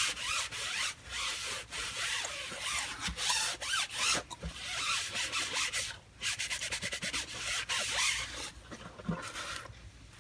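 Hand rubbing and scrubbing on a socket case being cleaned, in quick repeated strokes with a couple of short pauses, dying down near the end.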